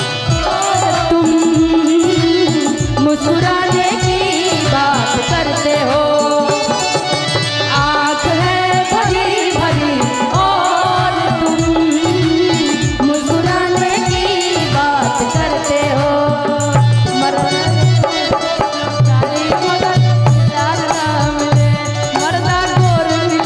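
Live Bhojpuri stage-band instrumental interlude: a wavering melody line over steady, fast drumming.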